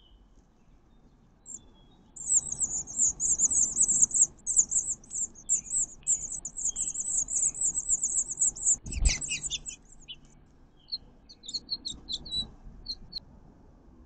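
Songbird nestlings about two weeks old begging while a parent feeds them: a high, rapid, buzzy chatter that starts about two seconds in and runs until a single thump about nine seconds in. A few short scattered chirps follow.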